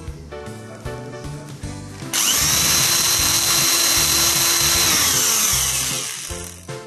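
Small electric drill starting about two seconds in and running at a steady speed for about three seconds as it widens the hole in a toy train's motor pinion gear, then winding down with a falling pitch. Background music runs underneath.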